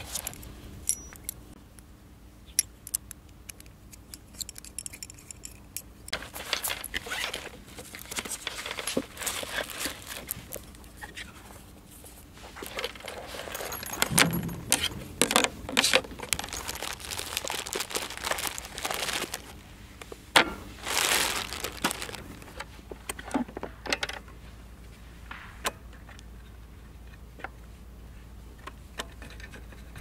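Metal camp cutlery jingling and clinking as it is handled in a fabric utensil case, with rustling and scattered small knocks of gear being moved about on a wooden table.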